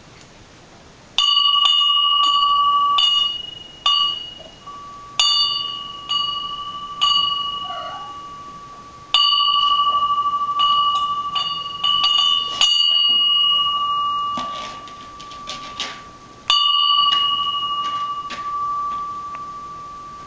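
A small bell rung repeatedly by a pet, in irregular strikes, each leaving a long fading ring; several strikes come in quick succession midway, with a last strike a few seconds before the end.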